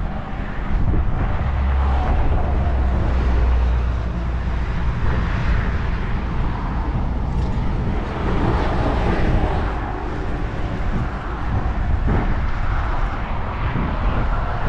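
Road traffic passing on the bridge: a steady low rumble of vehicles that swells and fades several times.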